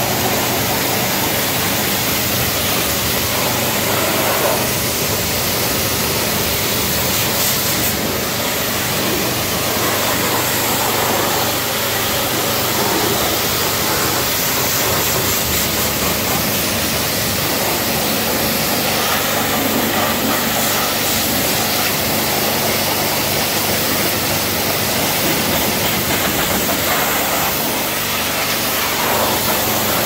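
Pressure washer jet spraying water onto a car's engine bay to rinse off degreaser: a steady hiss of spray with a hum underneath.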